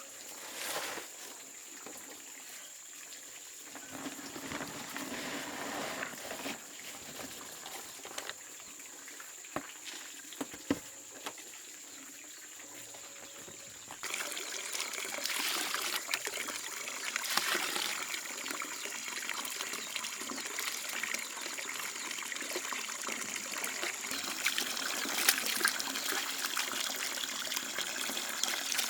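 Water trickling and running, growing louder and steadier about halfway through, with a few light knocks earlier on.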